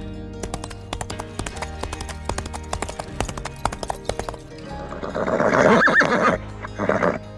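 Horse hooves clip-clopping on hard ground in quick steps, then a horse's loud whinny about five seconds in, followed by a shorter call, over background music.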